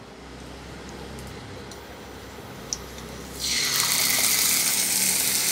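Marinated pork steak laid into a little hot oil in a pan, which breaks into a steady sizzle about three and a half seconds in. Before that there is only a low hum.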